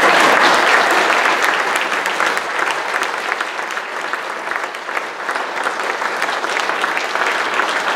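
A congregation applauding, a dense patter of many hands clapping. It is loudest at the start and settles slightly lower after a couple of seconds.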